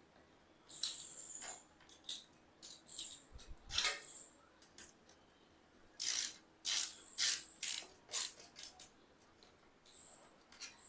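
Hand tools working on a rusty bicycle: irregular metallic clicks and rattles, with a run of quick, louder scraping strokes about six to eight seconds in.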